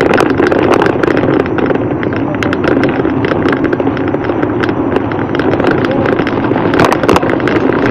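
Wind rushing over the microphone of a camera on a moving bicycle, with frequent clicks and knocks as the bike rattles over a rough dirt road.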